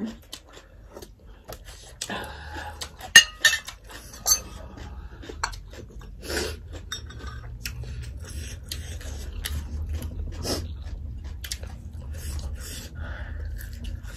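Ceramic dishes and spoons clinking several times, sharpest about three to four seconds in, followed by chewing and other eating sounds.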